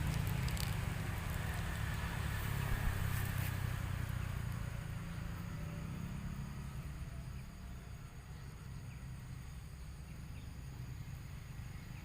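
Low, steady engine rumble, like a vehicle passing, that fades away about seven seconds in, with a few faint clicks in the first few seconds.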